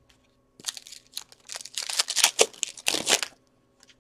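Foil wrapper of a 2016-17 Upper Deck Series 2 hockey-card pack crinkling and tearing as it is ripped open and handled: a rustling, crackling stretch starting about half a second in and dying away just before the end.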